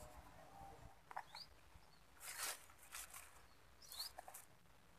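Faint outdoor ambience by still water: twice, a short rising chirp from a small animal, and a few brief soft rustling noises near the middle.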